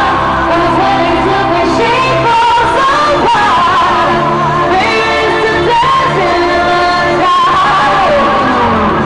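Live pop concert music in an arena, recorded from the crowd: a female lead vocal sings a melody over an electronic dance backing with a steady bass line.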